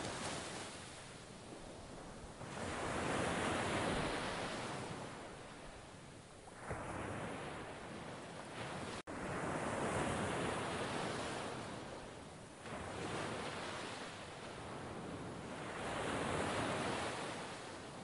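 Sea waves breaking and washing up a sand-and-pebble beach, the rush swelling and fading three times. The sound cuts out for an instant about halfway through.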